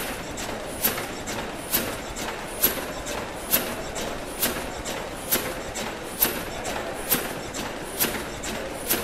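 Bancroft Mill's cross-compound horizontal steam mill engine running at steady speed. Its machinery makes a steady clatter with a sharp click about once a second and softer ticks between, a rhythm that keeps time with the engine's slow turning.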